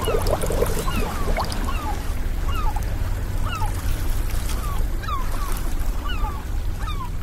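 Sea sound effect: a steady wash of waves with a low rumble, and short falling bird calls about once a second.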